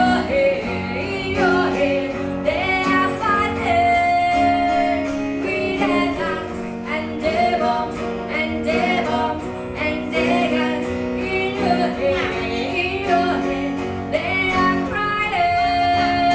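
A woman singing into a microphone, accompanied by acoustic guitar in a live acoustic band.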